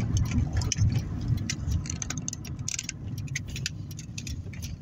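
Car moving slowly, heard from inside the cabin: a low engine and tyre rumble with a string of light clicks and rattles over it, about three a second.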